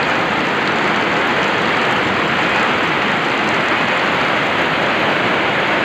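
Heavy typhoon rain pouring down in a steady, dense rush.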